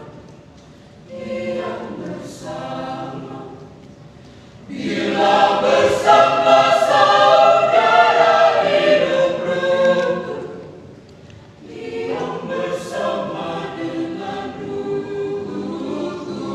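Mixed church choir singing in phrases, with a short soft passage early on giving way to a full, loud swell of voices in the middle, then a dip and a fresh phrase near the end.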